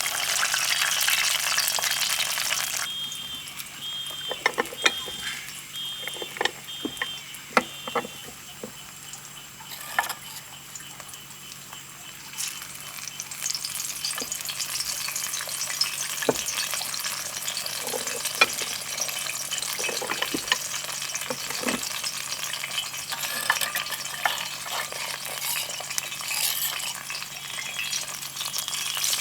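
Food sizzling in hot fat, broken after about three seconds by a quieter stretch of sharp separate knocks as the once-fried green plantains are smashed flat. After that, a steady sizzle of plantains in their second fry.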